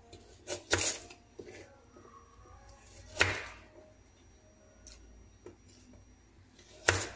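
A knife slicing raw sweet potato into fry-shaped strips and striking the cutting board: a few sharp, irregularly spaced knocks, the loudest about three seconds in and just before the end, with faint small ticks between.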